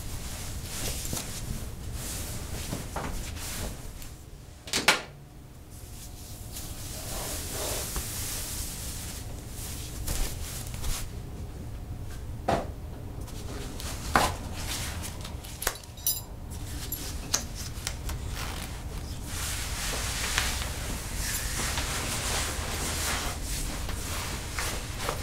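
Scattered knocks and clicks of household objects being handled over a steady low rumble and hiss; the loudest knock comes about five seconds in.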